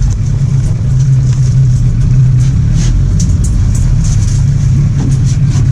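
Small motorized river ferry boat's engine running steadily with a loud low drone, under a faint hiss.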